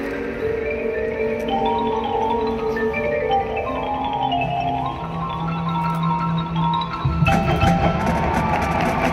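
Marching band music led by front-ensemble mallet percussion (marimba, xylophone and bells) playing a slow melodic passage of held notes. Lower, louder instruments come in about seven seconds in.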